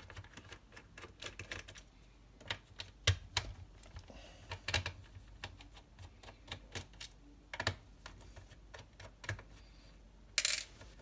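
Irregular light clicks and taps of a screwdriver and small screws against a laptop's plastic case as screws are removed, with a brief louder clatter near the end.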